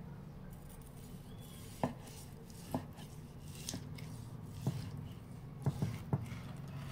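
A sharp knife slicing grilled picanha into strips, the blade knocking the cutting board with each cut: about one knock a second, then three in quick succession near the end.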